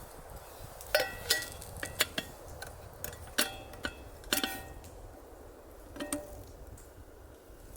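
Metal camp kitchen gear clinking and tapping: about eight sharp clinks in the first six seconds, several of them ringing briefly.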